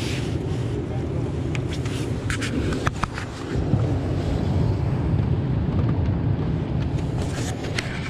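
Steady low rumble with clothing rubbing close over the microphone, and a few sharp clicks and knocks about one and a half to three seconds in as a freshly caught shad is handled in a landing net on a boat.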